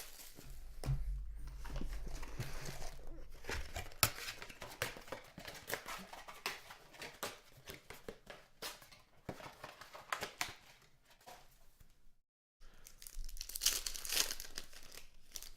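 Plastic wrapping on a box and packs of 2016 Panini Contenders football cards being torn open and crinkled by hand, with sharp crackles and clicks. It stops for a moment about 12 seconds in, then starts again.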